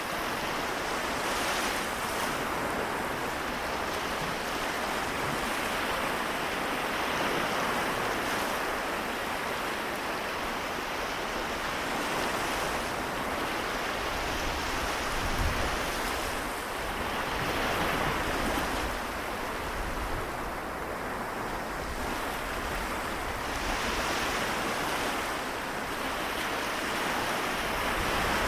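Small waves of the Seto Inland Sea washing ashore, a steady wash of surf that swells and eases every few seconds. A gust of wind briefly buffets the microphone about halfway through.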